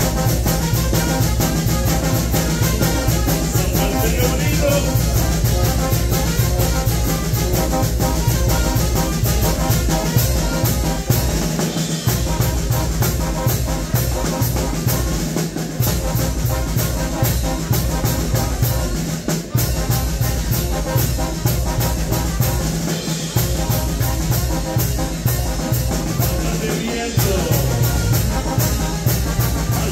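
Mexican banda de viento playing live: tuba, trumpets and a bass drum with cymbals keeping a steady dance beat. The low tuba and drum part drops out briefly a few times.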